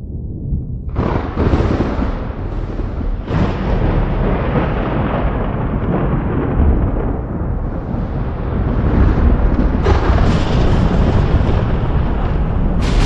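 Thunder: a sharp crack about a second in that rolls on into a long rumble, with fresh claps at about three seconds and near ten seconds.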